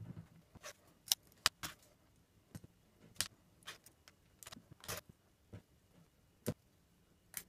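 Scissors snipping through thin stepper-motor lead wires, along with small handling clicks: a string of short, sharp snips and ticks, irregularly spaced.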